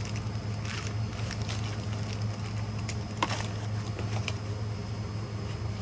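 Clear plastic product bags crinkling and rustling as they are handled in a cardboard box, with scattered short crackles, over a steady low hum.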